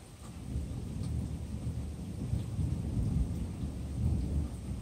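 Thunder rolling overhead: a deep rumble that swells within the first second and keeps rumbling on. Light rain sounds faintly behind it.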